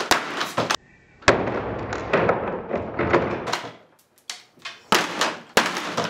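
Blows from a long-handled hammer against a door held shut by a swing-bar door guard. The first is one hard bang about a second in, with a long rattling decay. Several sharper knocks follow near the end. The blows break the guard's top pin.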